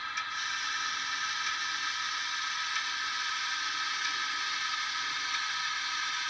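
Steady hissing from an H0 model steam locomotive's sound decoder, played through the model's small speaker and holding at an even level, like steam blowing off from a standing locomotive.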